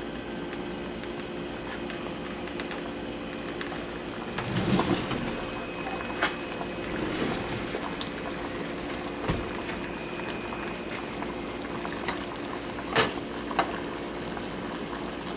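Pot of water at a rolling boil, bubbling steadily, with a thermostat and its housing submerged in it. A few sharp clicks and taps sound over the bubbling.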